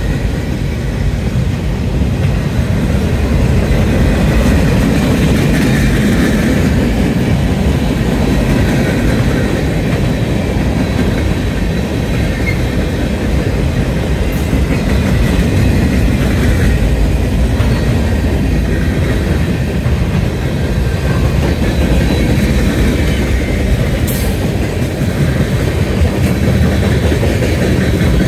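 Freight train cars rolling past close by: the steady rumble of steel wheels on rail from a long string of tank cars, boxcars and hoppers.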